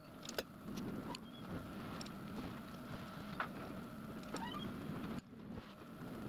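Steady motor hum from the milling-machine setup, with a few sharp clicks and a couple of short rising squeaks, while graduation lines are scribed into a metal dial ring with a pointed scriber. The hum drops out briefly about five seconds in.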